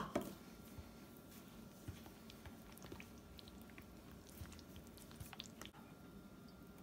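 A sharp click at the very start, then faint wet squishing and light ticks of a spatula stirring sugar into thick pumpkin pie filling in a glass bowl.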